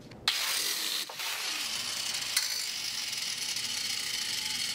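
Angle grinder with an abrasive cut-off disc grinding through a steel rod clamped in a vise: a steady hissing grind that starts abruptly just after the start, with a brief dip about a second in.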